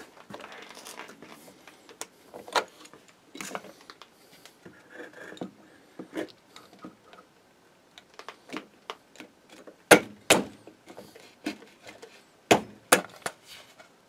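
Scattered metal clicks and light knocks of a small wrench tightening a nut down a threaded rod set in a wooden post. A few louder knocks come about ten seconds in and again near the end.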